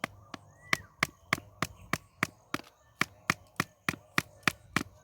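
A hand tool chopping in quick, even strokes, about three sharp strikes a second.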